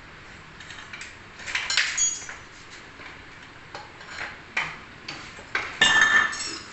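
Scattered light clinks and knocks of metal on metal, louder towards the end, where a few ring briefly.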